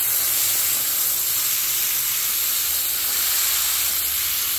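Water spraying from a garden hose nozzle into a fabric grow bag of soil already pooled with water, a steady hiss that cuts off suddenly near the end as the water is shut off.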